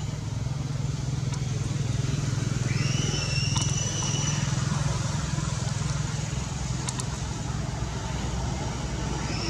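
A motor vehicle engine running steadily with a low hum, and one high, drawn-out monkey call about three seconds in that rises and then holds its pitch for about a second.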